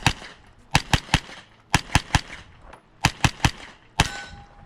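Rapid gunfire from a shooter running a timed stage: shots come in quick strings of about three, each string roughly a second apart. A brief faint tone sounds near the end.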